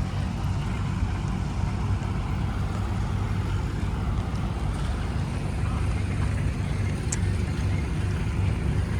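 An engine running steadily at low speed, giving a low, even rumble. A brief high tick comes near the end.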